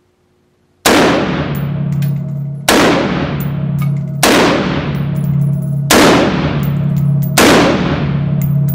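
Five single rifle shots from an Adcor B.E.A.R. Elite AR-15 in .223, spaced about a second and a half apart, each followed by a long ringing echo in an indoor range. Light metallic clinks fall between the shots.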